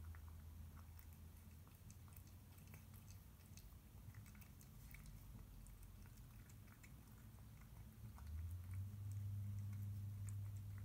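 A cat eating wet food from a stainless steel bowl: faint, irregular chewing and licking clicks over a low steady hum that grows louder about eight seconds in.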